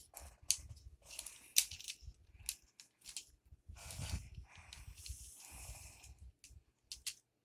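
Lego Technic mobile crane being handled and turned: scattered small plastic clicks and scrapes, with a few longer rustles.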